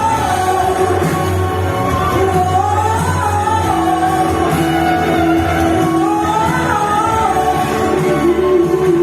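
Worship-song music between sung lines: a lead melody that rises and falls in long slow phrases over a sustained band accompaniment, with no words.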